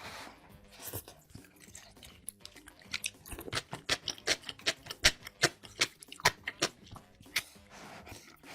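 Close-miked chewing of crunchy food: a run of sharp crunches, sparse at first, then quick, about four a second, from about three seconds in until near the end.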